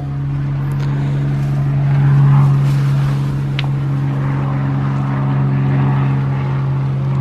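Electric sander and its attached dust-extraction vacuum running steadily, giving an even low-pitched hum with a light rushing noise over it.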